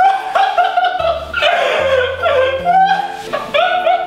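Background music: a melody line over a bass that steps between held notes.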